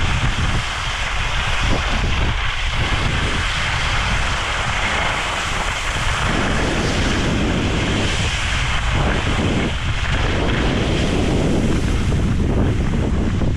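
Wind rushing over the microphone of a camera carried by a moving skier, a steady rumble, under the hiss of skis sliding and turning on snow that thickens and thins from turn to turn.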